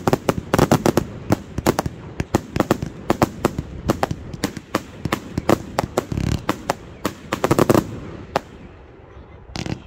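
Professional fireworks display: a rapid barrage of sharp bangs and cracks from firework cakes and shells, with a deeper boom about six seconds in. The bangs thin out near the end.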